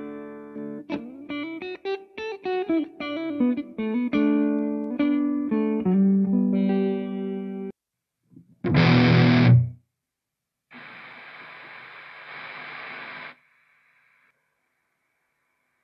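Electric guitar with a cheap single pickup, played through Amplitube 4 amp simulation: a phrase of single notes and string bends for about eight seconds. About nine seconds in comes one loud, short, noisy burst, followed by a couple of seconds of steady hiss.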